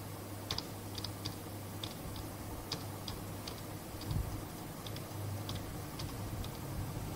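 Sharp clicks at uneven spacing, about one or two a second, from computer controls pressed to skip through presentation slides, over a steady low hum. A dull thump about four seconds in.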